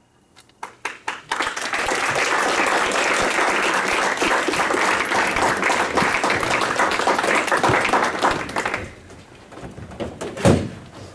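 Audience applause that starts with a few scattered claps, swells into steady clapping and dies away after about nine seconds. Near the end come a few wooden knocks and one heavy thump, the loudest sound here, as cajón box drums are carried off and set down.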